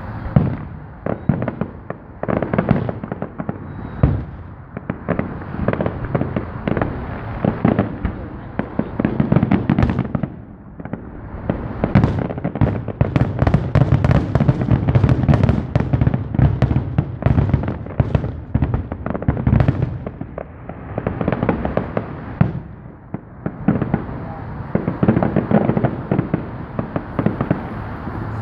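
Aerial fireworks display: shells bursting one after another in rapid succession, with short lulls, thickest about halfway through.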